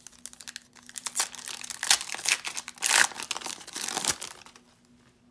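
Foil wrapper of a 2019 Optic baseball card pack crinkling and tearing as it is ripped open by hand. The crackling comes in quick sharp strokes, is loudest about three seconds in, and stops about a second before the end.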